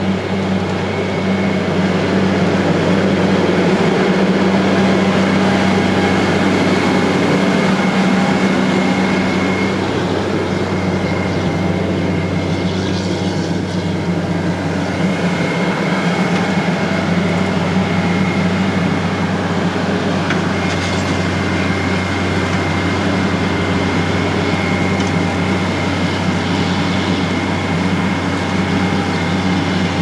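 Dewulf RA3060 self-propelled potato harvester at work, its six-cylinder Deutz diesel engine running steadily under load, with a thin steady high whine over the engine.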